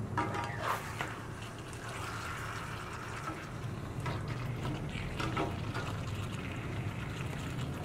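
A spatula stirring and turning chicken pieces in thick tomato-paste sauce in a stainless honeycomb wok, making wet scraping, squelching strokes. There are a few strokes in the first second and more about four and five seconds in.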